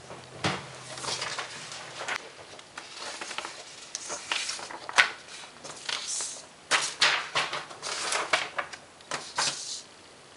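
Sheets of paper being handled and shuffled by hand, rustling and crinkling in irregular bursts with a few sharper flaps, stopping shortly before the end.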